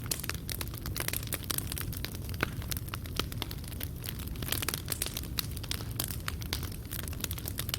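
Fireplace fire crackling: many quick sharp pops of burning wood and coals over a steady low rumble of the flames.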